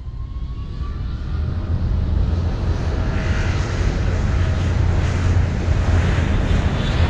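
Cinematic intro sound effect: a deep rumble with rushing noise that swells louder over the first few seconds, then holds steady.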